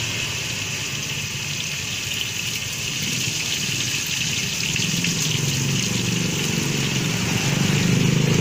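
Duck pieces deep-frying in a wok of hot oil over a gas burner, a steady sizzle. A low rumble grows louder in the second half.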